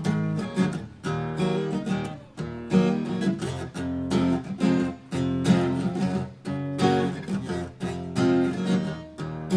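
Acoustic guitar strummed in a steady rhythm of chords, the instrumental opening of a song before the vocals come in.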